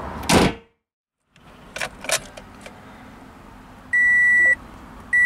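Hood of a 2006 Toyota Corolla shut with a single loud bang. Then, after a couple of light clicks, the car's dashboard warning chime sounds twice with the ignition on: two long, steady beeps about a second and a quarter apart.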